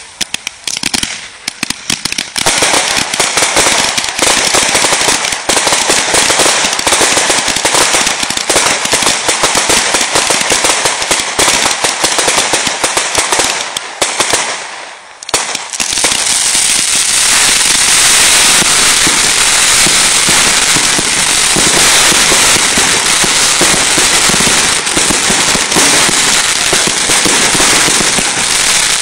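Consumer 1.4G fireworks going off in quick succession: a loud, dense crackle of shots and bursting stars. It builds up about two seconds in, thins briefly around the middle, then comes back thicker and unbroken.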